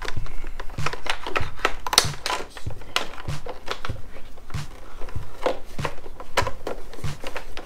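Irregular sharp clicks and light clatter of small parts and tools being handled during a handbrake installation, with a low background-music beat thumping about once a second underneath.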